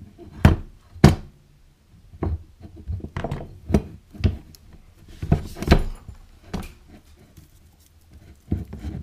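Handling noise from stripping the outer jacket off a yellow rubber power cord: irregular sharp clicks and thunks of the cord and tools knocking on the workbench, the two loudest about half a second and a second in, with softer knocks and rustling as the jacket is worked off the conductors.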